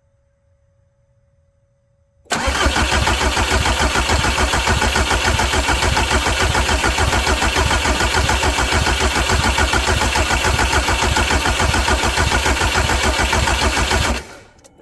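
Volkswagen Jetta TDI diesel engine cranking on its starter without firing: a loud, even, rhythmic cranking that starts suddenly about two seconds in and cuts off abruptly near the end, about twelve seconds later. The injector lines are cracked open to bleed air out of the fuel system after a fuel filter change.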